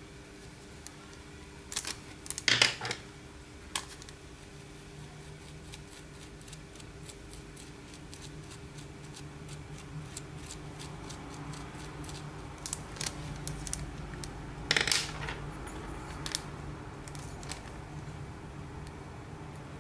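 Coloured pencil tip tapping and scratching on a grainy paper sheet while dotting in colour, with short clusters of sharp clicks about two seconds in and again about fifteen seconds in. A faint steady hum runs underneath.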